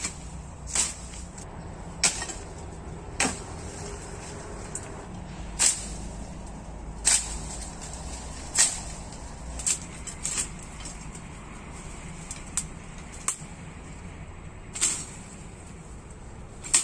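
Machete chopping through brush and thin branches: a dozen or so sharp strikes at uneven intervals, roughly one a second.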